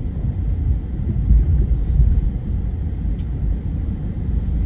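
Car driving on a narrow road, heard from inside the cabin: a steady low rumble of engine and tyre noise.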